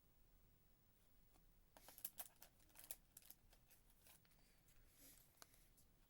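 Faint rustling and light clicks of trading cards being handled, starting about two seconds in.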